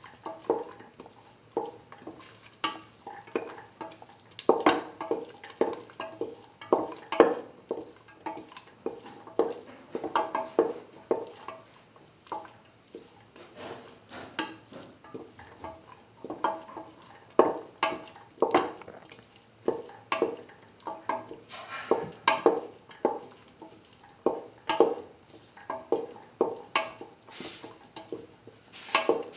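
A spoon stirring a thick beetroot and green pea mixture in a steel pressure cooker pot, scraping and knocking against the metal in repeated irregular strokes, one to three a second.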